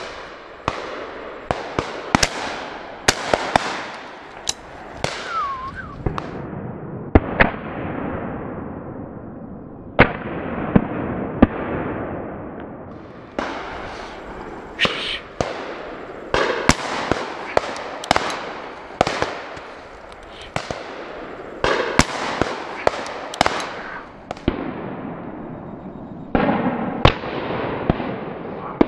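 Shotguns firing repeatedly at driven pheasants, some thirty shots, a few loud and close and most farther off, each trailing an echo off the wooded hillsides.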